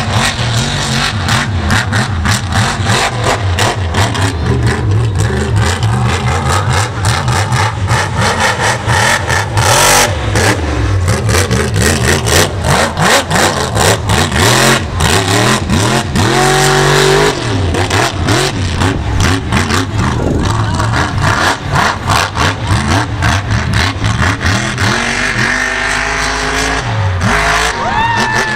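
Mud bog truck's engine revving hard and loud as it spins its tyres through the mud pit, its pitch climbing in rising revs about halfway through and again near the end, with a constant rough crackle.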